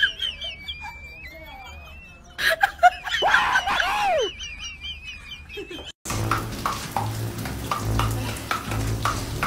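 Birds chirping and warbling in quick, wavering high notes, broken by one loud rising-and-falling squealing cry about two and a half seconds in. About six seconds in the sound cuts to a steady rushing noise over a low hum.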